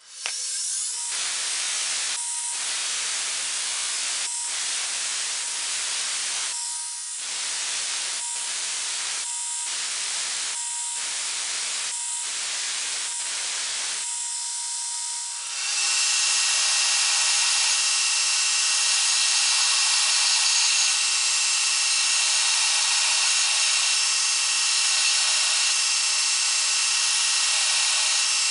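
Belt grinder grinding a steel knife blade. For the first fifteen seconds the grinding comes in short passes with brief breaks about once a second, over the belt's steady whine. Then it becomes a louder, unbroken grind with a steady hum underneath, as the blade is held against the belt over the contact wheel and throws sparks.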